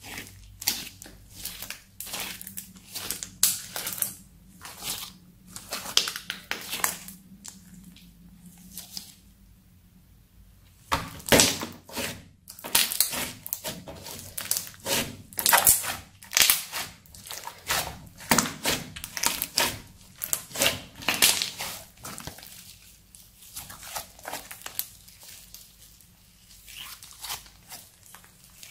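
Crunchy slime being squeezed, folded and stretched by hand, giving irregular runs of sharp crackles and pops. There is a short pause about ten seconds in, the crackles are thickest for the next ten seconds, and they grow sparser near the end.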